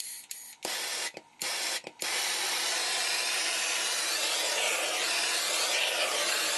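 Handheld propane torch hissing as it is played over freshly poured epoxy to pop surface bubbles: a few short bursts of hiss, then a steady hiss from about two seconds in.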